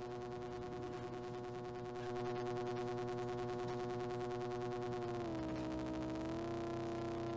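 Synthesized rectangular-wave tone from a Moog Model 15 (iPad app) oscillator: a steady, buzzy pitched tone that swells slightly about two seconds in and then steps down a little in pitch a little after five seconds in as the oscillator's frequency is turned.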